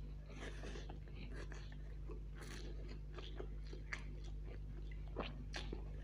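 A man eating chow mein noodles off a fork, slurping strands into his mouth and chewing, with wet mouth sounds and a few sharp clicks. A steady low hum runs underneath.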